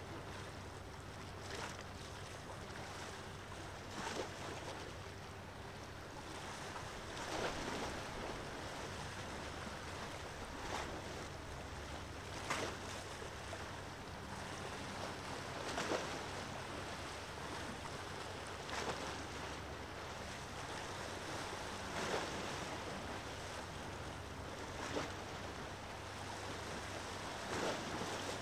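Small waves washing in at the water's edge about every three seconds, each a brief swell of noise, over a steady low drone.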